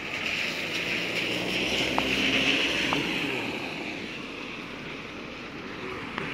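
Steady hiss of summer rain on the street, with a car driving past on the wet asphalt, its tyres swishing through the water and engine humming. The car swells to loudest about two seconds in and then fades.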